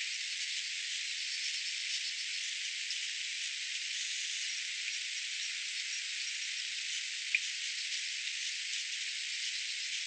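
Steady, thin, high hiss of outdoor background noise with nothing low in it, faint high chirps scattered through it, and one sharp tick a little past seven seconds in.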